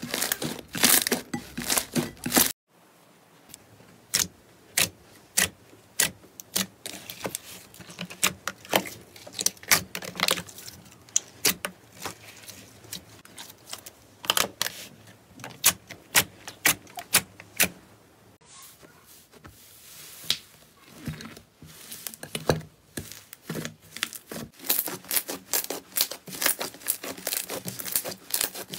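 Slime being squeezed, pressed and poked by hand, giving a run of sharp, sticky pops and crackles. The sound breaks off abruptly about two and a half seconds in, then resumes with sparser pops that grow denser near the end.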